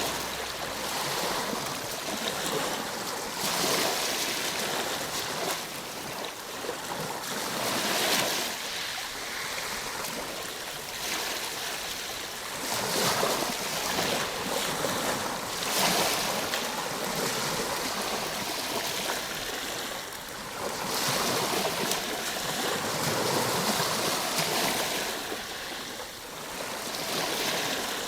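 Ocean waves breaking, the surf swelling louder every few seconds and washing back between.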